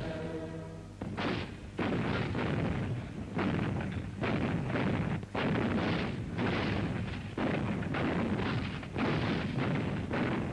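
Field artillery firing a rapid series of shots, one about every second, each blast running into the rumble of the last. A crowd's chanting cuts off about a second in, just before the first shots.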